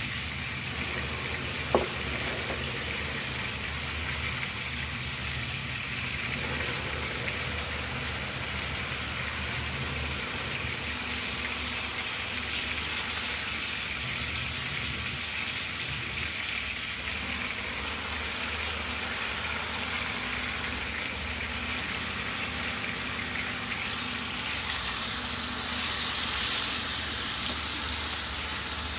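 Lemon sole frying in pans, a steady sizzle that grows louder near the end. A single sharp tap about two seconds in.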